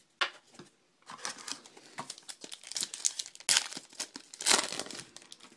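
Foil wrapper of a Panini Prestige football card pack being torn open and crinkled: a run of crackling tears, loudest at about three and a half and four and a half seconds in.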